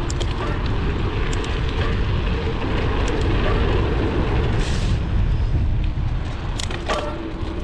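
Wind rumbling on a GoPro's microphone as a mountain bike is ridden, with tyre and trail noise and a few short clicks and rattles from the bike.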